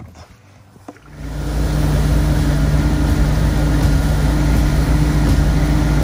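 2008 Malibu VLX wake boat running steadily at surf speed: a steady engine drone under the rush of wind and churning wake water. It comes in suddenly about a second in.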